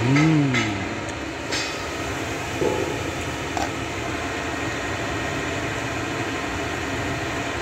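Steady rumbling background noise, with a short hum from a voice that rises and falls at the very start and a few light clicks in the first few seconds.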